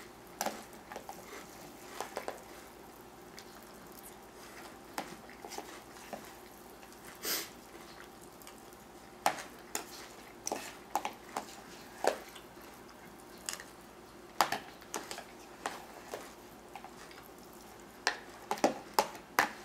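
Spoon clinking and scraping in a plastic container of cereal and milk, in short, irregular clicks.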